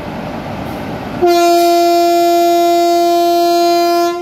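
Horn of a WAP-4 electric locomotive sounding one long, steady blast of about three seconds. It starts about a second in over the noise of the passenger train rolling past.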